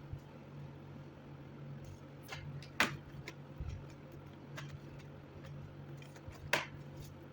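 Scattered light clicks and taps from a laptop being handled, two of them sharper, about three seconds in and near the end, over a steady low hum.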